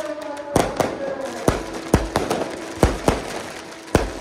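Fireworks going off in a quick, irregular series of about seven sharp bangs.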